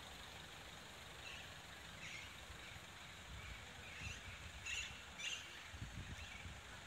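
Faint bird chirps, several short calls scattered through, over a steady outdoor hush, with a low rumble starting about six seconds in.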